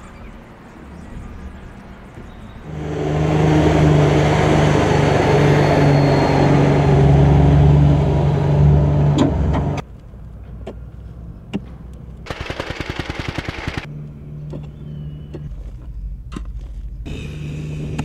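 A heavy engine running loud and steady for several seconds, then cutting off abruptly. A brief fast rattle and a lower engine hum follow.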